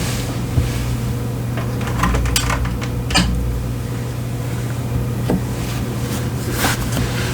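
A few separate keystrokes, slow and spaced out, on a modded CIY Tester 68 hotswap keyboard with tactile Akko Lavender Purple switches and PBT keycaps, each press a short clack.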